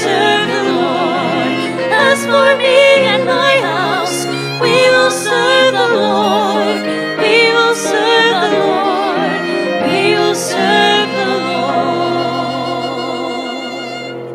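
Offertory hymn at Mass: a singer with wide vibrato accompanied by piano. The last chord is held and fades near the end.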